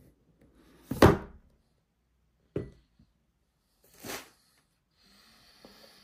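Packaging being handled during an AirPods Max unboxing: three short thuds about a second and a half apart, the first the loudest, then a soft rustle near the end.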